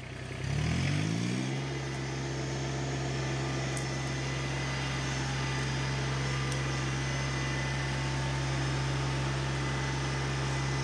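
LS MT125 sub-compact tractor's diesel engine throttled up, its revs rising over about a second, then running steadily at high revs while working.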